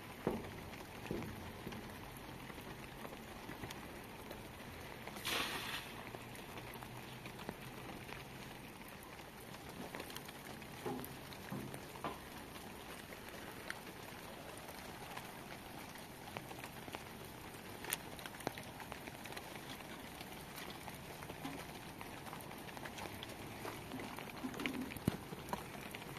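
Steady hiss of light rain, with a few scattered knocks and rustles, the loudest about five seconds in.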